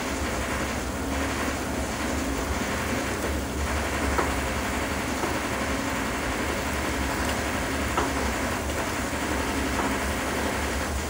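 Steady rumbling hiss of background kitchen noise, with a few faint knife taps on a cutting board.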